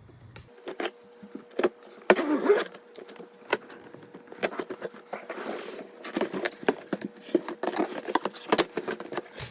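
Cardboard box and packaging being handled and torn open: irregular clicks, knocks and rustling, with a faint steady hum underneath.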